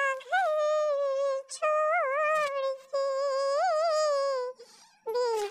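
A woman singing a bidaai (bride's farewell) song on her own, with no accompaniment, in long drawn-out notes that waver in pitch, broken by a few short pauses.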